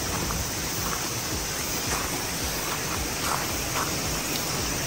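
Steady rush of flowing river water, with footsteps crunching on gravel about every half second.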